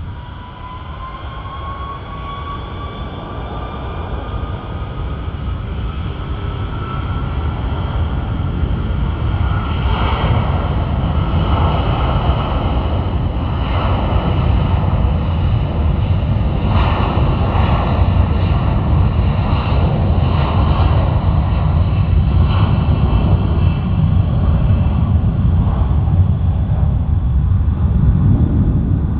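Airbus A330's twin jet engines spooling up, with a whine that rises in pitch over the first several seconds over a low rumble that grows steadily louder.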